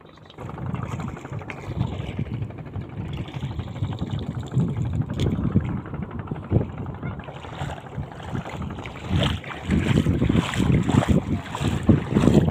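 Wind buffeting the microphone out on open water, over the steady running of a boat's engine; the gusts grow stronger in the second half.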